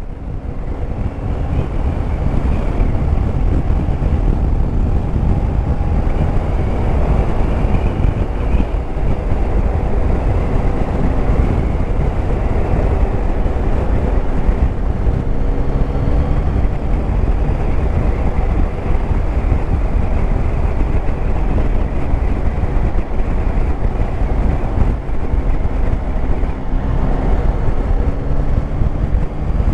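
Yamaha Tracer 9 GT's 890 cc three-cylinder engine running steadily while riding, under heavy wind rumble on the helmet camera's microphone.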